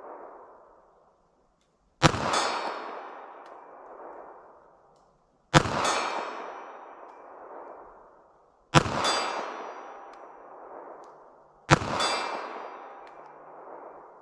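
Four shots from a .380 ACP pocket pistol, about three seconds apart, each trailing off in a long rolling echo. The third and fourth shots are each followed a fraction of a second later by a fainter sharp knock.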